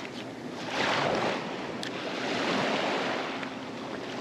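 Small bay waves washing against the shoreline, swelling twice and falling back over a steady wash of water.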